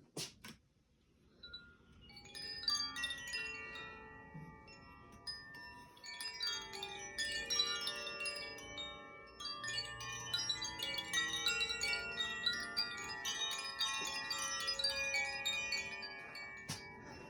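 Koshi chime ringing: its clapper strikes the tuned metal rods inside the bamboo tube, building a dense wash of overlapping, lingering tones. The ringing starts about two seconds in, after a couple of sharp clicks, and keeps going with one more click near the end.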